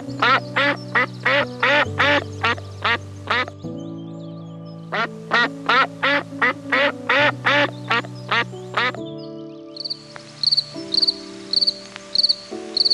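Two runs of rapid, evenly repeated animal calls, about three or four a second, with a pause between them, over sustained background music chords. About ten seconds in, a high chirp repeating about twice a second takes over.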